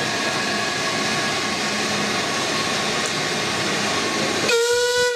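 Metropolitan Railway steam tank locomotive Met No. 1 standing with a steady hiss of steam. About four and a half seconds in, its steam whistle sounds suddenly, one long steady note.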